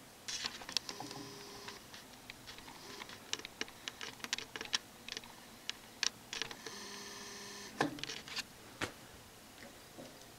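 Scattered light clicks and taps as the oxyhydrogen generator's metal case is handled and tilted, with two short squeaky tones, one soon after the start and one about seven seconds in.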